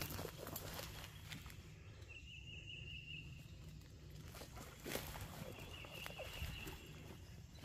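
Footsteps crunching through forest leaf litter, with a high trill about a second long from somewhere in the woods, heard twice.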